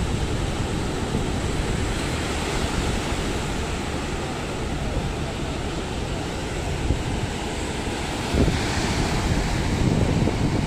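Small waves breaking and washing up a sandy beach, with wind buffeting the microphone in a low rumble. The surf hiss swells louder a little over eight seconds in.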